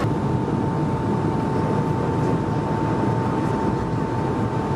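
Airliner jet engines at takeoff power heard from inside the cabin during lift-off and the initial climb: a steady, dense noise with one constant whine running through it.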